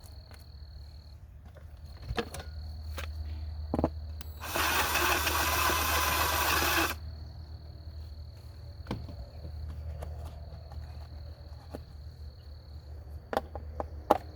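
Power drill with a step bit (unibit) running for about two seconds, boring out the socket hole to enlarge it, amid scattered handling clicks and knocks.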